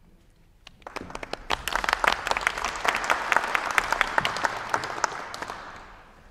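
Audience applauding: the clapping starts about a second in, builds quickly, and dies away near the end.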